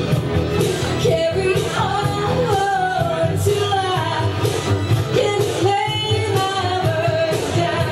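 A woman singing a pop-rock song over a loud karaoke backing track with steady bass and drums, her melody sliding up and down between held notes.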